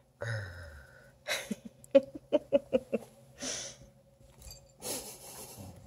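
Redbone Coonhound puppies playing: a few short puffs of breath, and a quick run of light taps and scuffles about two seconds in.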